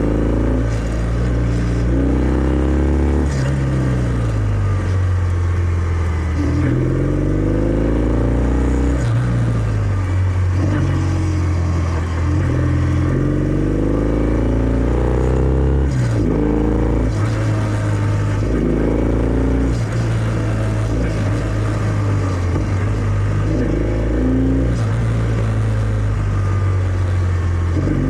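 Kawasaki W650's air-cooled parallel-twin engine running through its stock exhaust while riding. The revs climb and drop back about six times, as the throttle is opened and closed and gears change.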